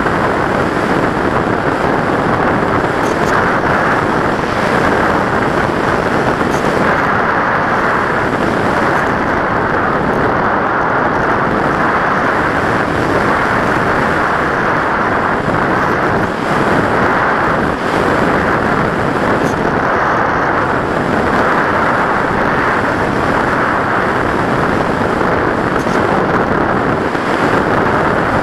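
Loud, steady rush of airflow over the microphone of an action camera mounted on an RC model plane in flight, swelling slightly now and then.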